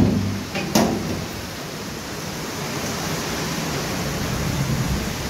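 Metal clanks from the sliding bolt and padlock of a steel door, one at the very start and another just under a second in, over a steady hiss of heavy rain.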